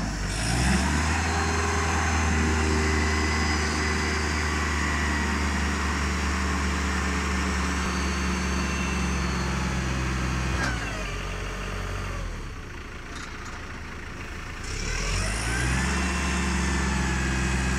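Diesel engine of a 3-ton forklift running steadily at raised revs while the mast lifts the paper roll clamp. About ten and a half seconds in it drops back and runs quieter for a few seconds, then revs up again near fifteen seconds as the clamp is turned.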